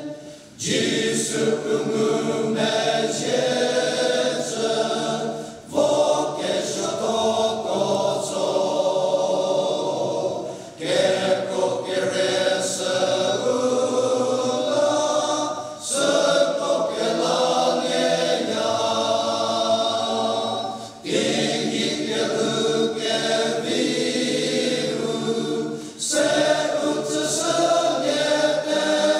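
Men's choir singing a hymn in parts, in phrases of about five seconds with short breaks for breath between them.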